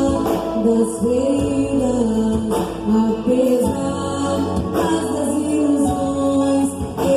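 Music: a band playing a song with a sung melody over sustained low accompaniment.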